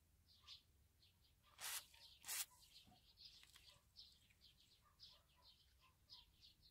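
Two short hisses of an aerosol spray can sprayed through its red extension straw onto rusty pliers, about half a second apart, early in the second half of the second second. Faint bird chirps run in the background.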